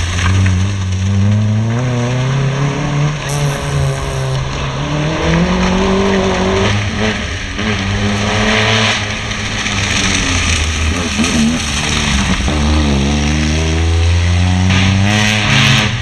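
Small hatchback cars' petrol engines revving hard through a slalom course. The pitch repeatedly climbs and drops as the drivers accelerate, change gear and lift off between the cones.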